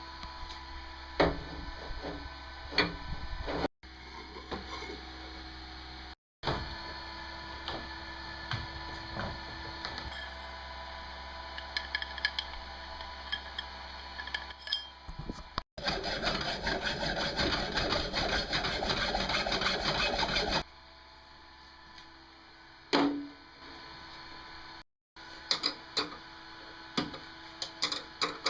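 Workshop hand-work in short cut-together bits: scattered knocks and clinks of parts being handled, and a stretch of about five seconds of loud, rapid, even rasping like sawing, which stops abruptly.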